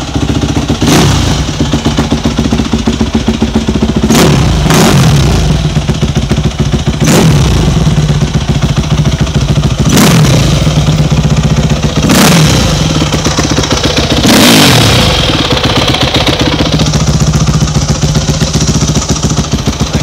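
2006 Yamaha YZ250F's 250cc four-stroke single-cylinder engine idling through its stock exhaust, blipped about seven times, each rev dropping quickly back to idle.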